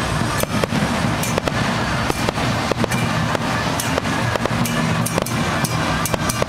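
Fireworks bursting overhead: many sharp bangs in quick, irregular succession, several a second, with festival music playing underneath.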